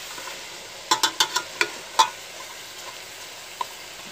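Chicken pieces sizzling as they are sautéed dry in a metal pot, before any water goes in. A metal ladle stirs them, knocking and scraping against the pot about six times in quick succession about a second in, and once more near the end.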